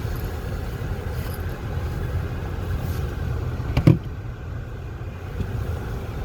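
Car driving, a steady low rumble of road and engine noise, with one short sharp thump a little under four seconds in.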